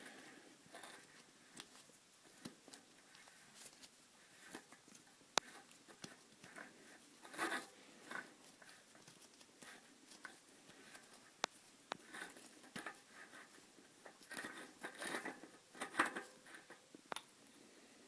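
Scattered light clicks and handling noises as a loosened singlespeed bicycle freewheel is unscrewed from the rear hub by hand, with two sharp clicks and a few short bursts of rattling.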